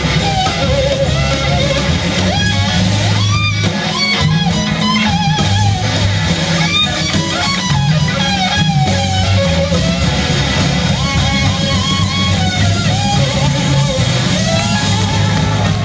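Live rock band playing an instrumental passage: an electric guitar lead with wavering, bending notes over bass and drums.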